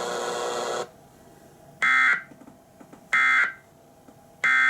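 Emergency Alert System end-of-message data tones from a NOAA Weather Radio broadcast: three short bursts of shrill digital data tones, about 1.3 seconds apart. They mark the end of the severe thunderstorm warning. A second of steady radio noise comes before them.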